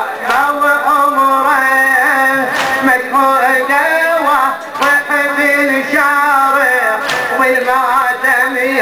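A man's voice singing an Arabic lament (latmiya) in a slow, wavering melody with long held notes, and a sharp stroke about every two seconds.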